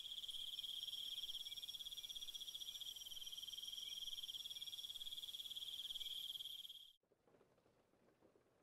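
A steady, rapidly pulsing high-pitched insect trill that cuts off abruptly about seven seconds in, leaving near silence.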